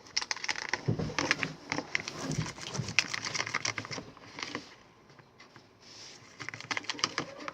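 A utensil stirring white glue and acrylic paint in a container, making quick irregular clicks and scrapes against the sides, with a short lull about five seconds in.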